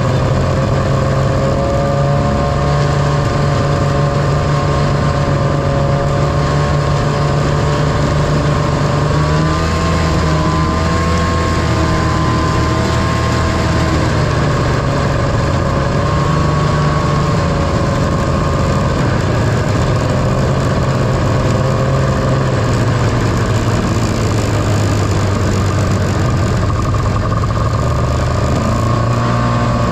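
1978 John Deere Liquifire snowmobile's liquid-cooled two-stroke engine running under way at a fairly steady cruising speed, its pitch wavering with the throttle about ten seconds in, easing off after the middle, and picking up again near the end, over a steady noisy rush.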